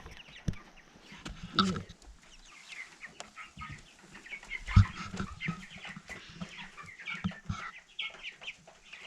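Four-week-old meat king broiler chicks peeping and clucking in a steady run of short, high calls. A single thump about halfway through is the loudest sound.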